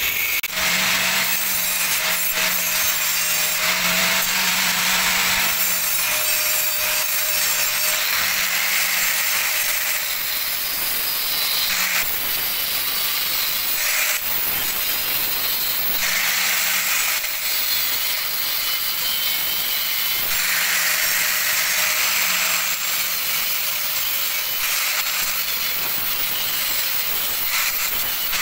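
Handheld electric angle grinder running steadily with a cut-off disc cutting square steel tubing. The hiss of the cut swells and eases every few seconds as the disc bites in and backs off.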